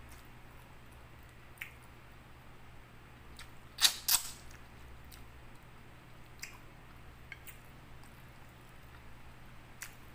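Mukbang eating sounds: scattered faint wet clicks of chewing and of fingers working rice and stewed fish on a plate, with two loud sharp clicks close together about four seconds in.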